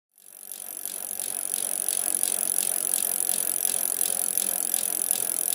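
Bicycle freewheel clicking steadily, about four ticks a second, over a steady high hiss. It fades in from silence at the start.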